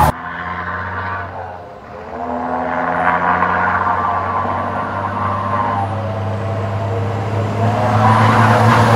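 Diesel engine of a Renault Premium 370 eight-wheel rigid truck pulling toward the listener, its steady engine note growing louder from about two seconds in as the truck nears.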